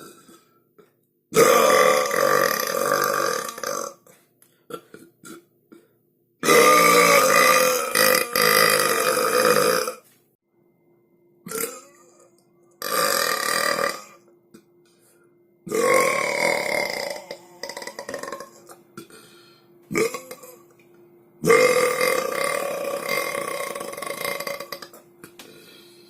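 A person burping loudly, a run of about five long, drawn-out belches, each lasting a few seconds, with a couple of short burps in between and brief quiet gaps.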